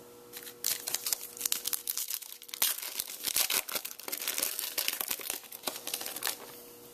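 Foil wrapper of a Topps Finest baseball card pack being torn open and crinkled by hand: dense crackling and tearing from about half a second in until just before the end.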